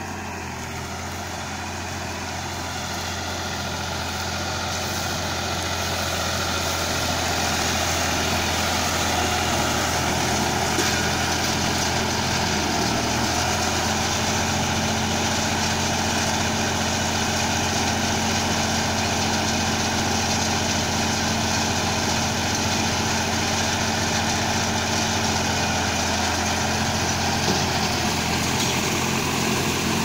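Diesel tractor engine running steadily while driving a PTO-driven mini round baler through straw, growing louder over the first several seconds as it comes closer.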